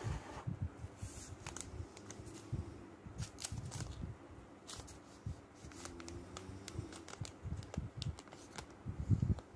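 Handling a new Vivo V27 Pro still in its plastic protective film: the film crinkles, with scattered small clicks and taps and dull bumps throughout.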